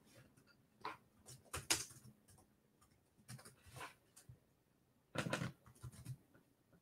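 Faint, scattered light clicks and taps, several over a few seconds, with a slightly longer rustle about five seconds in.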